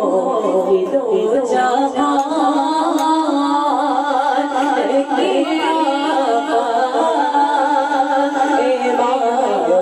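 Voices singing a naat, the devotional praise song of a Milad gathering, in one continuous wavering melody.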